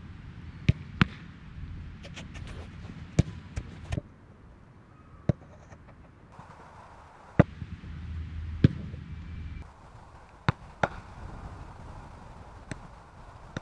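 Football being kicked and caught: about a dozen sharp single ball strikes, some in quick pairs, the loudest about halfway through, over a low rumble.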